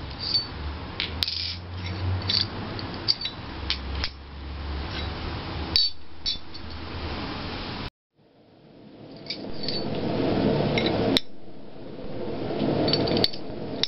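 Steel dies and the guide block of a blacksmith's guillotine fuller tool clinking and scraping as they are lifted out, set down and slid on the anvil face, in a string of sharp metallic clicks. The sound cuts out abruptly about eight seconds in and returns as background noise with a few more clinks.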